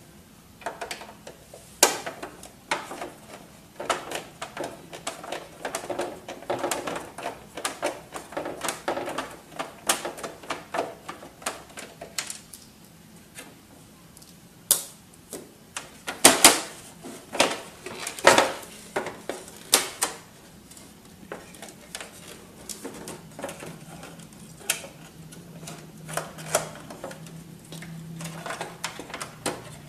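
Irregular plastic clicks, clatter and knocks as the parts of an HP F2410 all-in-one printer's plastic housing are handled and pried apart by hand, busiest in the first half with a few sharper knocks in the middle. A faint low steady hum comes in during the second half.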